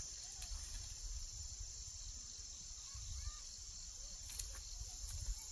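A steady, high-pitched insect chorus, with a low rumble underneath and a few faint chirps and soft clicks.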